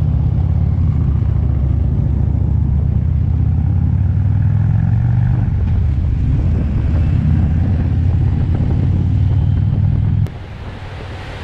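Harley-Davidson V-twin motorcycle engine running steadily under way, heard from the rider's seat as a deep, even low note. The sound cuts off abruptly about ten seconds in.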